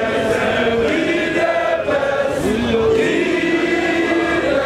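A large crowd singing and chanting together, many voices holding long notes at once.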